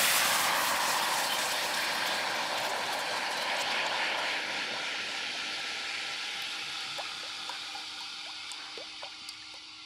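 Soy-sauce marinade sizzling in a hot stainless-steel wok: a loud hiss that dies down steadily as the sauce cools the pan, with a few bubbles popping near the end.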